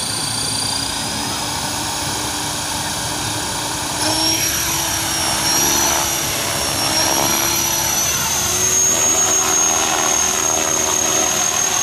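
Align T-Rex 500 electric RC helicopter's brushless motor and gears whining, with the rush of the spinning rotor blades. The whine jumps louder and higher about four seconds in, then climbs a little more as the helicopter lifts off and hovers.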